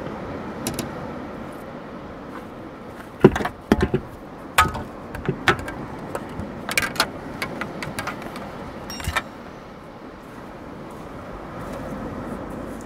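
Steady surf and wind noise, with a run of knocks, clicks and rattles from about three to nine seconds in as fishing rods and gear are handled at the back of a vehicle. The loudest knock comes near the start of that run.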